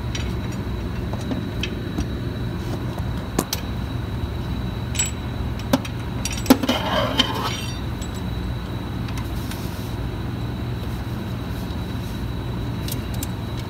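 A steady low hum with scattered sharp metallic clicks and taps as a bolt on a socket is worked into a transmission bracket's bolt hole. A short run of ringing clinks comes about six and a half seconds in.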